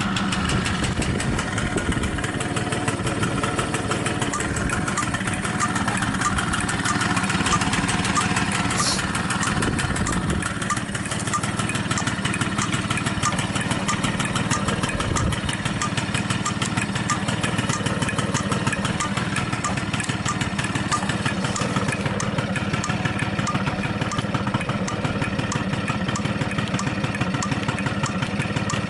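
Honda Squash AB11 50cc scooter engine idling steadily, with an even rapid beat and no change in speed. The seller presents it as running free of abnormal noises.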